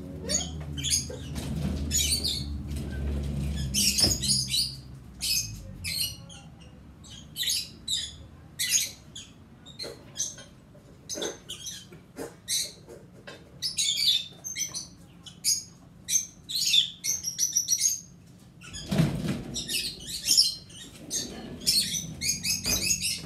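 Small birds chirping in quick, repeated clusters of short high notes. A low rumble sits under them for the first few seconds and briefly again near the end.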